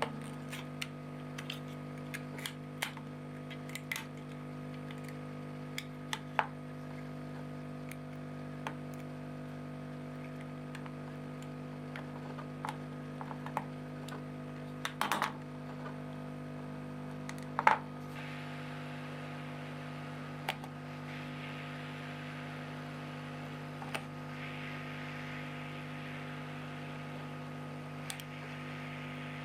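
Light clicks and taps of a plastic Canon CLI-551 ink cartridge being handled and pried apart, over a steady electrical hum. A few louder clicks come a little past the middle, and a soft scratchy hiss joins shortly after.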